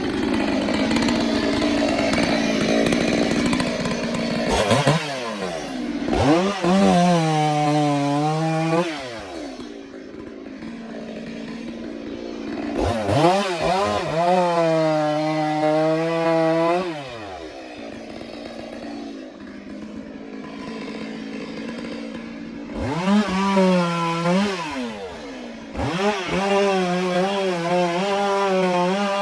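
Stihl chainsaw running, its engine revved up to a high steady whine three times, each held for a few seconds before dropping back.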